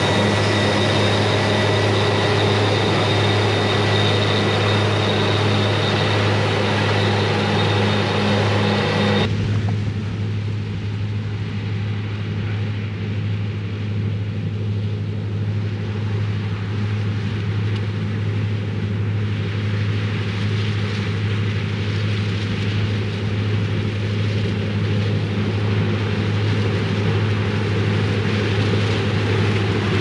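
New Holland CR960 combine harvester running steadily while harvesting corn, a continuous low machine hum. About nine seconds in the sound changes abruptly and a thin high whine drops out.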